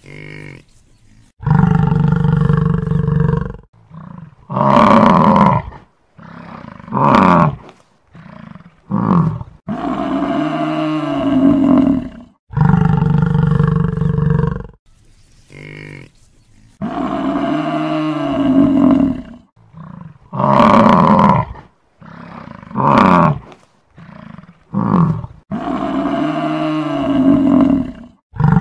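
Buffalo calling: a string of loud low bellows and shorter grunting calls, each from under a second to about two and a half seconds long, with brief gaps between them. The same run of calls comes round again about halfway through.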